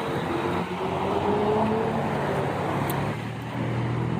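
A motor vehicle's engine running, a steady hum whose pitch drifts slowly up and down.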